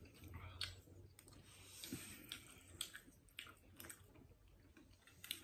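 Faint chewing of spicy instant noodles, with scattered small clicks.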